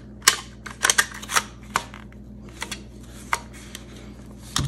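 Irregular sharp clicks and taps as a Kel-Tec CMR-30 rifle's grip frame is worked onto its upper receiver during reassembly, with a louder knock near the end.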